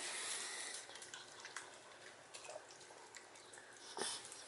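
A small chihuahua-type dog eating a piece of food from a hand: faint wet clicks and smacks of chewing and licking. A short rustle at the start and a slightly louder sound about four seconds in.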